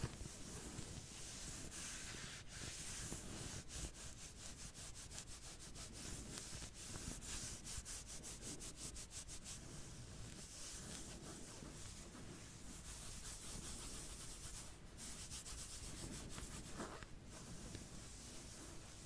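Soft back-scratching sounds for ASMR: continuous scratching and rubbing strokes. The strokes come quick and evenly repeated through the middle stretch.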